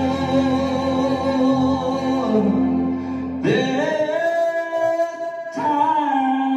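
Live country band playing on stage, a man singing long held notes over sustained guitar chords. About three and a half seconds in, a note slides up and is held, with a short break before the next note.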